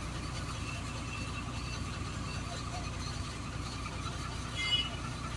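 Diesel engine of a trailer truck running steadily, heard from inside the cab as a low rumble. A short high-pitched tone sounds about four and a half seconds in.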